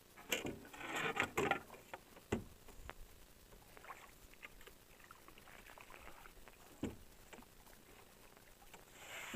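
Knocks and light splashing from a canoe on the water: a cluster of splashes and clicks in the first second and a half, then a few single hollow knocks on the hull, the sharpest about two and a half seconds in and near seven seconds.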